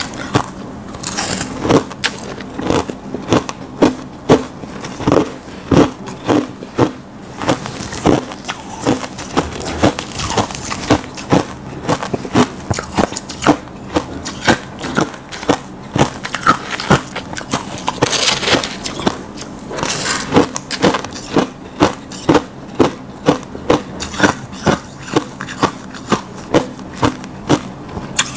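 Crushed ice crunched between the teeth close to a lapel microphone, in a steady run of sharp crunches about two a second.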